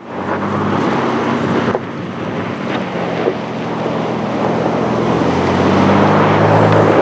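Ford Bronco Raptor's twin-turbo V6 running steadily as the truck is driven off-road over sand, with wind on the microphone; the engine grows louder toward the end.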